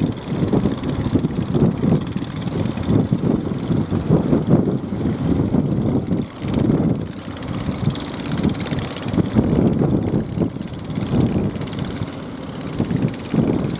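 Strong wind buffeting the microphone in an uneven low rumble that swells and dips every second or so.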